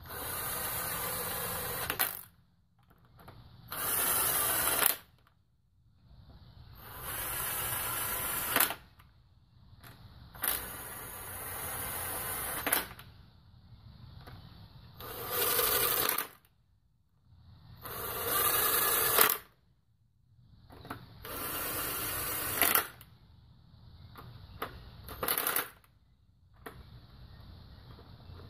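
Cordless power driver with a socket spinning the new oiled cylinder-head bolts down into a Toyota 1ZZ-FE engine, run up before they are torqued to spec. It goes in about eight short runs of a second or two each, with pauses between, and several runs end in a brief louder spike.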